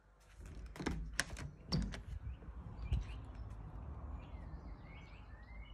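A glass patio door's handle and latch clicking as the door is opened, several sharp clicks in the first two seconds, then outdoor air with birds chirping.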